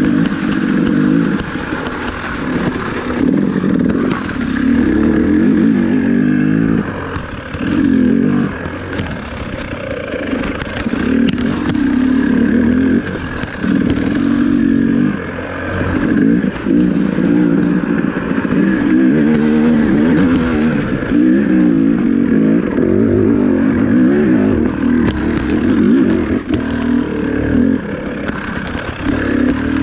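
2018 KTM 300XC's 300 cc single-cylinder two-stroke engine, breathing through a stock pipe and FMF Turbine Core silencer, revving up and dropping back again and again as the throttle is worked over rough trail. Clatter from the bike over rocks and roots comes and goes under the engine.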